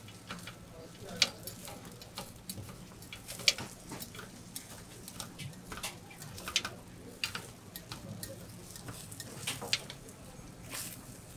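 A metal spatula and skewer clicking, tapping and scraping against the metal trays of a hot plate in irregular sharp strikes, with two louder clacks about one and three and a half seconds in. A steady low hum runs underneath.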